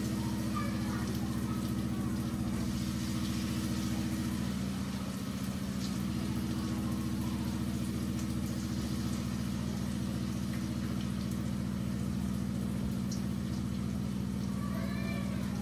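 A steady low motor hum with a droning pitch, which shifts briefly about five seconds in, over the faint sizzle of potato bhajias frying in a pot of oil.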